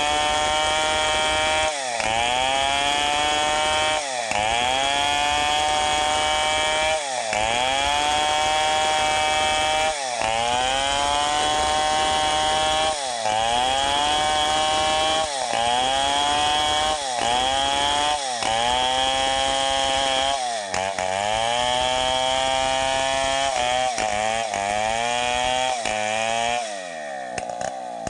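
Stihl 070 two-stroke chainsaw cutting lengthwise through a teak log, its engine note dipping under load and climbing back every two to three seconds as the bar is pushed into the wood, the dips coming faster near the end. Near the end it drops to a lower, quieter note before revving back up.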